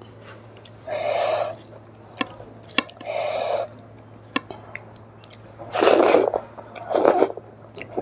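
Close-up eating sounds of a person eating rice mixed with dal by hand: soft wet chewing clicks and mouth sounds, with four short rushes of noise, the two near the end loudest.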